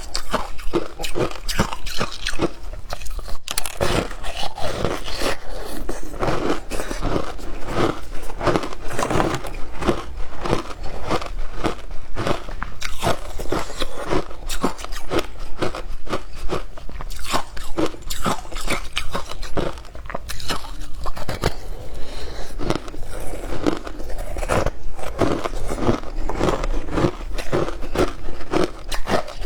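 Frozen passion fruit shaved ice being bitten and chewed: a continuous run of sharp crunches, several a second.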